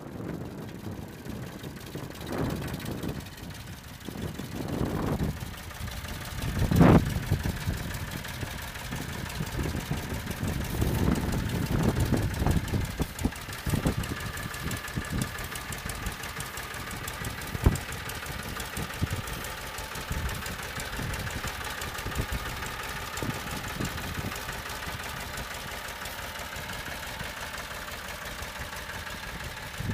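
Massey Ferguson 231 tractor's three-cylinder diesel engine running as the tractor is driven, its speed rising and falling in surges through the first half, with a loud thump about seven seconds in, then running more steadily.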